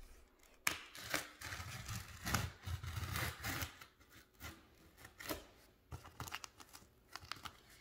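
Utility knife blade slicing through packing tape on a cardboard box. There is a run of scraping, tearing strokes for about three seconds, then a few shorter, lighter scrapes and ticks.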